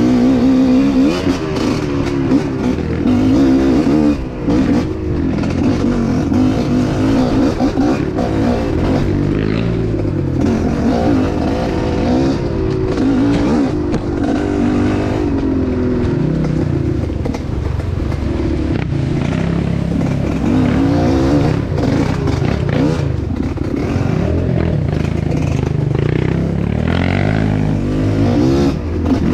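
Off-road trail motorcycle engine running under way, its revs rising and falling again and again as the throttle is worked, with scattered short knocks and rattles.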